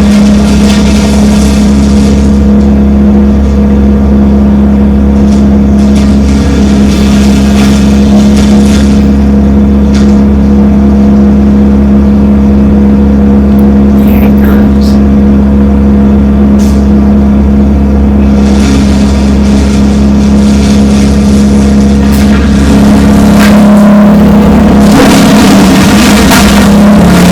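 Wood chipper engine running loudly at a steady speed, with noisier surges a few times as branches are fed through.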